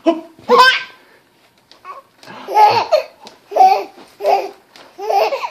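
Baby laughing in a run of short, high bursts, starting with a squeal about half a second in and followed by four separate laughs.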